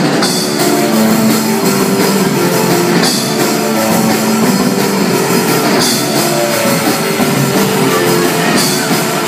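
Live rock band playing loud through a PA: electric bass, keyboard and drum kit, with a loud crash accent about every three seconds.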